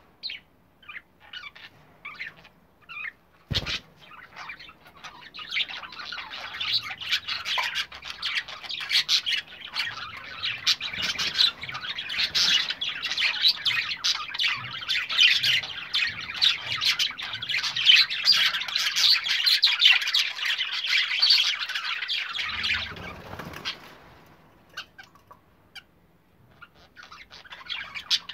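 Show budgerigars chattering and warbling. It starts with scattered chirps, becomes a continuous dense chatter from about four seconds in to about twenty-three seconds, drops back to a few chirps, and picks up again near the end. A single sharp knock comes about three and a half seconds in.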